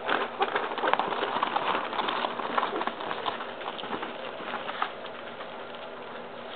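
Yorkshire terrier puppies moving about and mouthing a toy on a puppy pad: rustling and many small irregular clicks, busiest in the first five seconds and then quieter.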